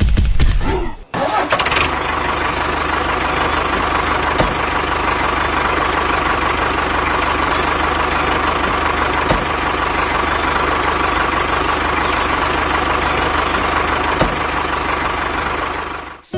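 An engine running steadily at idle, cutting in abruptly about a second in and cutting off just before the end.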